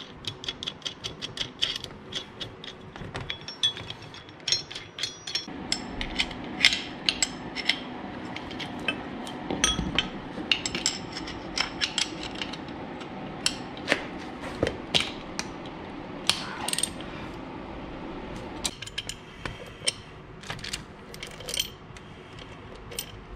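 Socket ratchet clicking in runs as the bolts of a steel transmission mount are turned, with metal clinks of bolts, washers and spacers being handled on a steel workbench.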